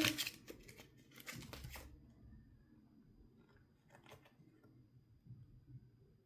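Thin plastic wrapper being torn open and crinkled by hand, a quick run of crackles over the first couple of seconds, then a few faint handling clicks.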